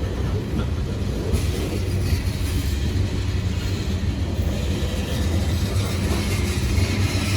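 Freight train rolling past at close range: a steady low rumble of wheels and cars on the rails, with a faint steady hum underneath.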